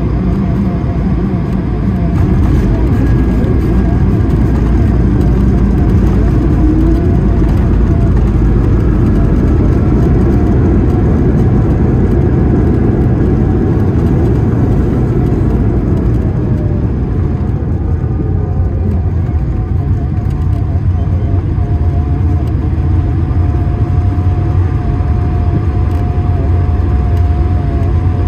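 Steady engine and rolling noise heard inside the cabin of an Airbus A220-300, with its Pratt & Whitney PW1500G geared turbofans, during landing and rollout. A rumble runs under engine tones, and one tone falls in pitch about halfway through.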